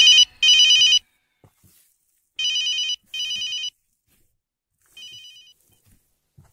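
Electronic telephone ringtone: a warbling trill in double rings, two pairs and then a single fainter ring, each quieter than the one before.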